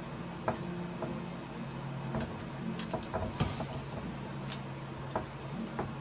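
Small, scattered metallic clicks and ticks from a tiny screw being fitted by hand onto a screwdriver tip that is not holding it magnetically, over a faint steady low hum.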